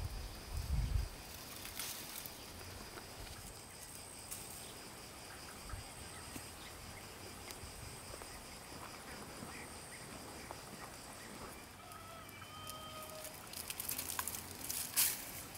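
Outdoor garden ambience with a steady high-pitched insect chirring throughout and a short bird call about twelve seconds in. Plant leaves and dry stalks rustle and crackle near the end as the plants are handled.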